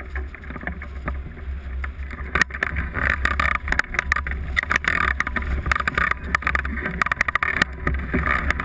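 Wind rushing over a hang glider's wing-mounted camera microphone in flight: a steady low rumble with rapid crackling buffeting, growing louder about two and a half seconds in.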